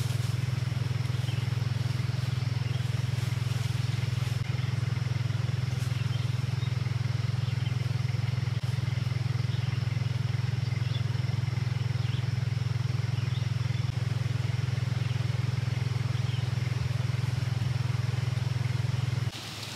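Steady low hum that does not vary, cutting off abruptly near the end, with faint high chirps, like small birds, above it.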